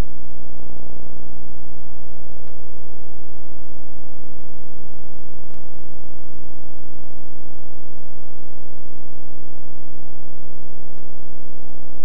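Loud, steady electrical buzz with many overtones, unchanging throughout, with a few faint ticks; no game or crowd sound is heard.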